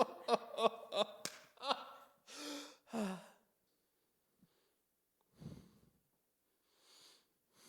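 A person laughing in short, evenly spaced pulses, trailing off into a breathy sigh about two and a half seconds in; after that only a couple of faint breaths.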